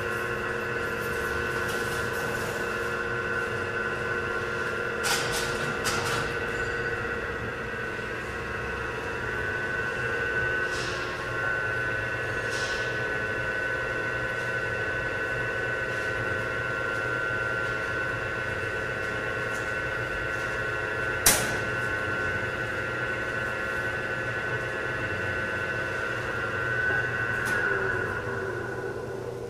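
Stokes Model 21 single-arm mixer running empty, its belt-driven agitator giving a steady hum with a high whine, and a few clicks including one sharp click about two-thirds of the way through. Near the end the machine is stopped and winds down, and the whine slides down and fades.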